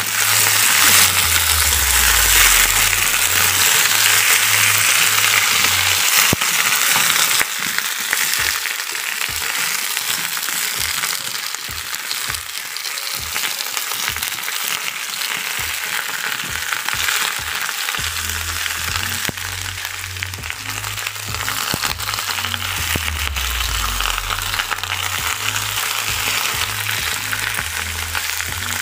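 Freshly added pok choy sizzling in hot oil in a metal wok as it is stir-fried with a spatula. The hiss is steady, loudest for the first seven seconds or so, then eases a little.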